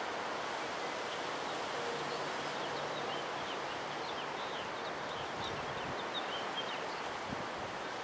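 Strong windstorm wind, gusting to 50–60 mph, rushing through bare tree branches as a steady noise, with a few faint high chirps in the middle.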